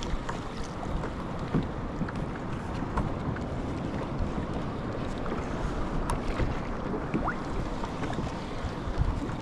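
Wind buffeting the microphone over water lapping against a kayak hull, with a few faint clicks.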